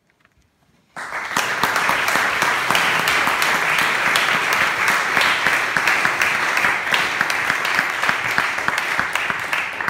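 Audience applauding, breaking out suddenly about a second in and holding steady.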